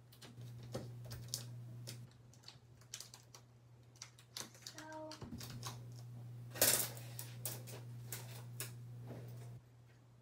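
Irregular clicks and taps of small objects being handled, with one louder clatter about six and a half seconds in, over a low hum that drops out for a few seconds and stops near the end.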